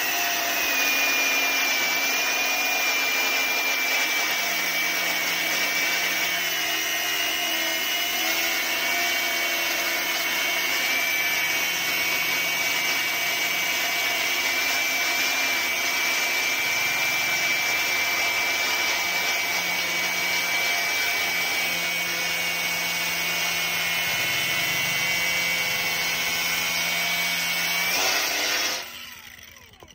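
Bosun AG100BL cordless brushless angle grinder cutting into a rusty steel plate with a cut-off disc: a steady high whine over grinding noise, the motor holding its speed under load without cutting out. The grinder stops near the end.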